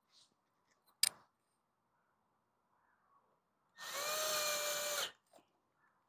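Milwaukee cordless screw gun driving a screw into the plastic air filter base plate. Its motor spins up quickly and runs at a steady whine for about a second and a half. A single sharp click comes about a second in.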